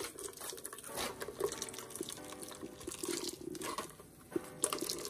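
Coconut milk dripping and trickling through a fine metal sieve into a glass bowl as a hand squeezes wet blended coconut pulp, in irregular small splashes.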